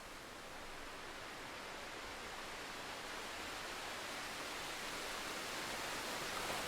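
Steady hiss of rain, growing gradually louder.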